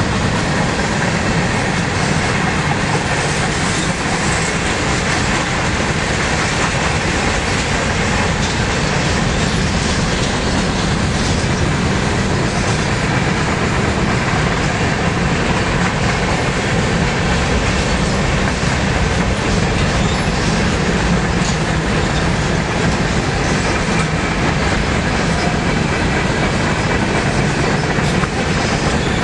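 Freight cars (boxcars and hoppers) rolling steadily past: a loud, continuous rumble and rattle of steel wheels on the rails, with occasional clicks.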